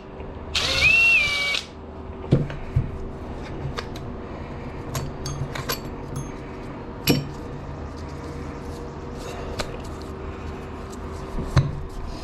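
A power drill spins in one short burst about half a second in, its whine rising and then holding, as a lawn tractor starter motor is taken apart on the bench. After it come scattered sharp metal clicks and knocks of the parts being handled, over a steady low hum.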